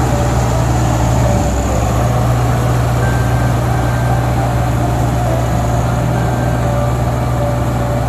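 Kartar tracked combine harvester working through a paddy field: its engine and threshing machinery give a loud, steady drone.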